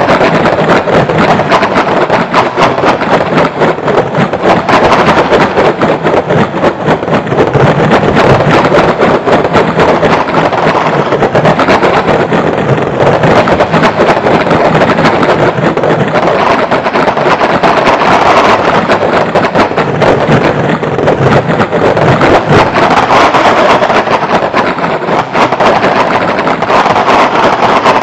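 Electronic computer music made of a dense, rapidly flickering noise texture centred in the middle range, steady in loudness with no pauses.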